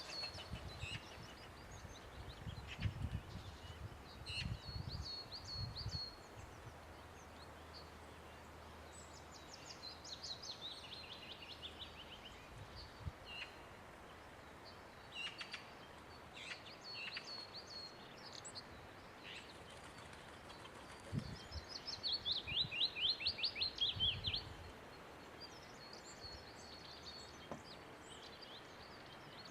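Several wild songbirds singing and calling: short high chirps scattered throughout, a descending run of quick notes about ten seconds in, and a louder fast trilled phrase about three quarters of the way through.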